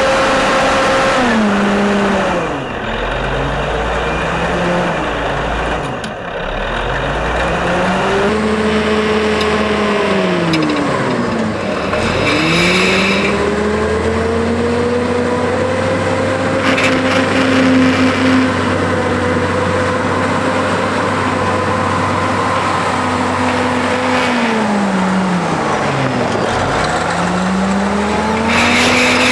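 Caterpillar 988A wheel loader's diesel engine working under load, revving up and dropping back several times as the loader digs and moves dirt: the engine falls to a low pitch and climbs again about four times, and holds high for a long stretch in the middle.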